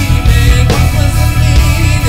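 Live rock band playing with drums, bass, electric guitar and keyboards, loud and continuous.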